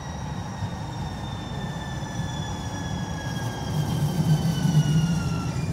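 Atlanta Streetcar (Siemens S70 tram) pulling into a stop: a high electric whine from its drive falls slowly in pitch as it slows, over a low rumble of wheels on rail that swells near the end.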